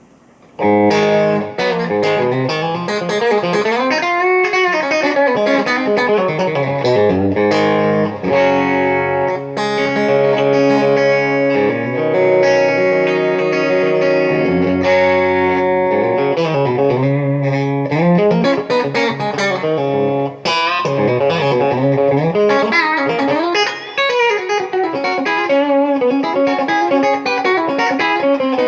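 Electric guitar played through an amp over a wireless guitar system: a melodic lead line with sustained and gliding notes, starting about half a second in.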